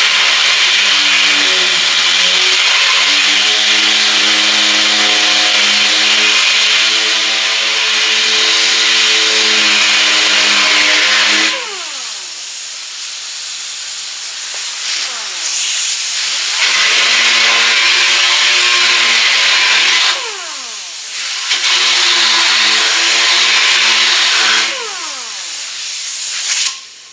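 Air-powered DA (dual-action) sander with a 36-grit disc running against a fiberglass door top: a loud hiss with a steady whine. It runs three times, first for about eleven seconds and then twice for about three seconds, and each time it winds down with a falling whine.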